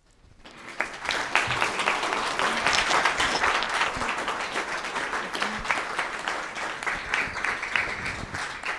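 Audience applauding, the clapping swelling over the first second, then holding steady and easing off slightly near the end.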